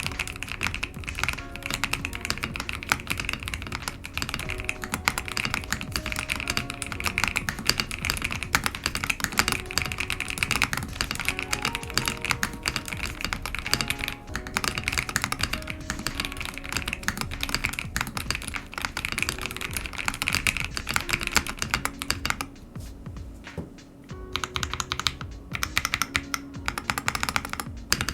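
Steady, fast typing on a ZUOYA GMK67 mechanical keyboard fitted with MMD Matcha Ice Cream linear switches (full POM housings) and thick PBT keycaps. The typing pauses briefly about halfway through and again for a moment near the end. Background music plays under it.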